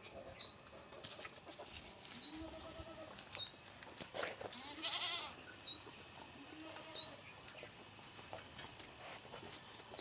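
Goats bleating now and then, mixed with the clucking of hens, and a few brief high chirps.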